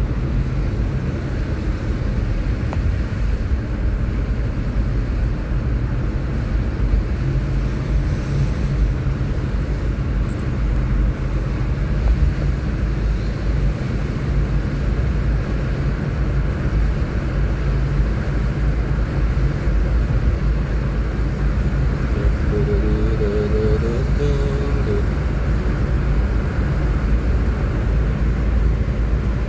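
Steady rumble inside the cabin of a Mitsubishi Pajero cruising on a wet road: engine drone mixed with tyre noise on the wet asphalt.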